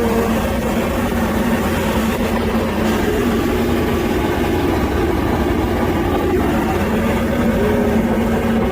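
High-pressure sewer jetting machine running steadily, its engine-driven pump holding a constant hum while it jets water into the drain line.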